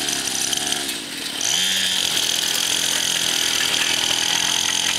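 Small 50cc pocket dirt bike engine running under a light rider. Its revs fall off over the first second, then pick up again at about a second and a half and hold steady.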